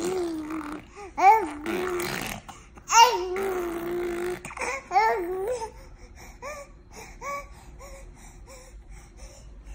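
Baby squealing and babbling in long high-pitched calls with rising squeals, the loudest about one and three seconds in, then a run of quieter short laughing syllables, about one or two a second.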